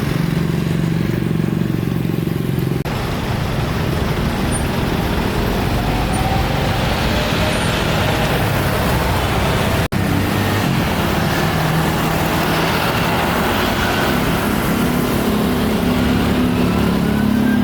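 Jet airliner engines running loudly and steadily, with a break about ten seconds in and a rising whine near the end.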